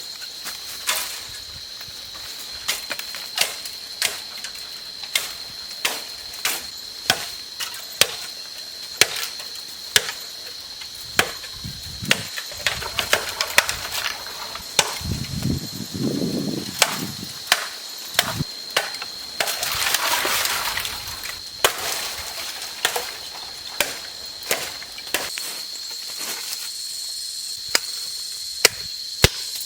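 Wood being chopped with a blade, sharp strikes coming about once a second, with some rustling partway through.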